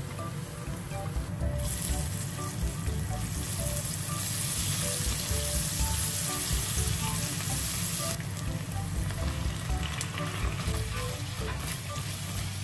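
Chopped garlic and onion sizzling in hot oil in a nonstick wok while being stirred with a plastic spatula. The sizzle grows louder about two seconds in and eases off about eight seconds in.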